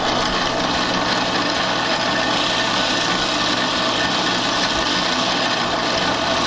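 Drill press running at about 2,000 RPM with a fine Dremel bit grinding the end of a rotary engine side seal under light pressure: a steady motor hum under an even, rasping hiss of metal being cut.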